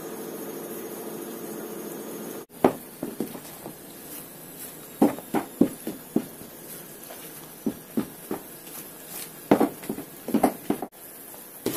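Hand working flour into soft, sticky yeast dough in a plastic bowl: irregular wet squelches and slaps, some in quick runs. They follow a steady low hum that breaks off abruptly a couple of seconds in.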